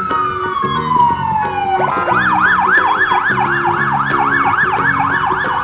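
Cartoon siren sound effect: a long falling whistle-like tone, then about two seconds in a fast warbling siren that rises and falls three to four times a second, over light children's background music.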